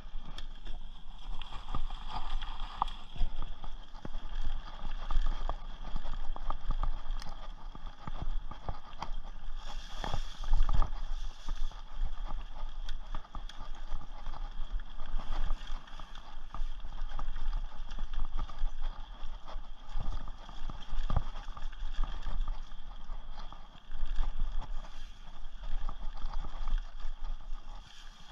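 Rocky Mountain Thunderbolt mountain bike ridden fast over a dirt forest trail: tyres running over dirt and leaves, with constant small rattles and knocks from the bike and a low rumble over the bumps.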